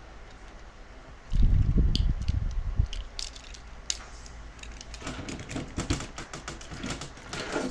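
Parts of a Bandai Voltes V robot toy being handled and fitted together. Low thumps come about a second in, then sharp clicks and knocks of the pieces, which grow into a dense run of clicking and rustling over the last few seconds.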